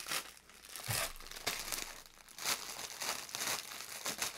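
Shiny plastic wrapping crinkling and rustling in uneven bursts as it is handled and pulled open, with a soft thump about a second in.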